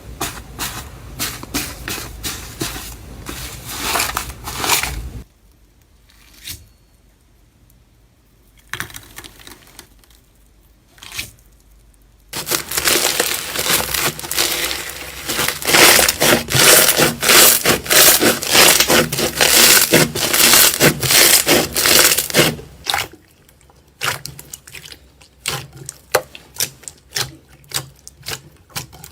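Slime being squeezed and pressed by hand, giving crackling, popping clicks. There is a quiet stretch about a fifth of the way in, then a long, loud run of dense crackling through the middle.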